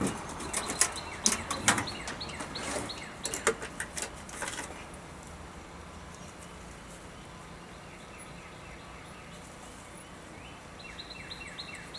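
A run of sharp clicks and knocks for about the first five seconds, like objects being handled and set down, then steady outdoor background with faint bird chirps near the end.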